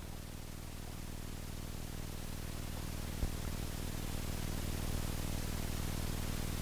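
Low, steady background hum and hiss that slowly grows louder, with one faint click about three seconds in.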